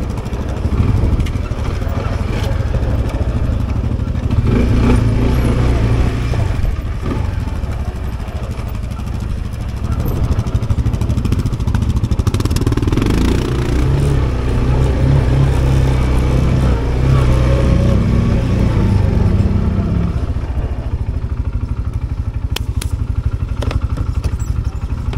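Loncin XWolf 300 ATV engine running while riding, its note shifting up and down in pitch through the middle.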